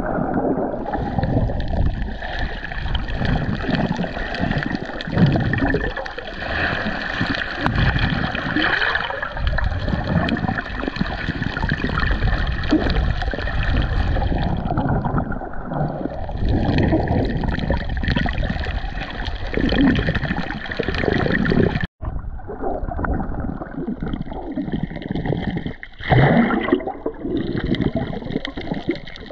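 Sea water sloshing and gurgling around a camera while snorkelling, a muffled, churning noise that rises and falls. It cuts out abruptly for an instant about three-quarters of the way through, then carries on.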